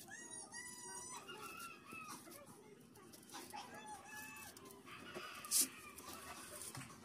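A rooster crowing faintly, followed by shorter chicken calls and clucks. A brief sharp noise about five and a half seconds in is the loudest sound.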